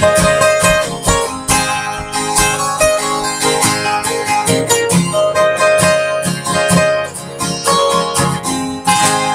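Strummed acoustic guitars playing an instrumental passage in a steady rhythm, with a last chord struck near the end and left to ring.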